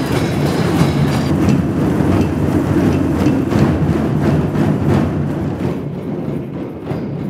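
A large group of djembes and other hand drums played together in a dense, continuous rumble, getting quieter and duller after about five seconds.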